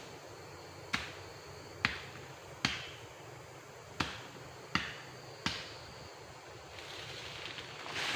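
A series of six sharp knocks or clicks, irregularly spaced under a second or so apart, the unexplained strange sound at a drainage ditch. A hissing noise swells near the end.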